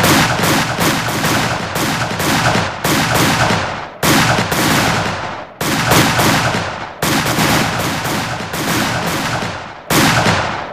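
Rapid automatic gunfire sound effect: dense runs of shots in about six long bursts, each breaking off briefly before the next begins.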